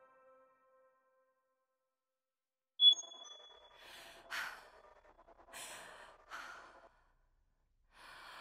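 A single short high beep about three seconds in, then four breathy sighs about a second or two apart, each under a second long.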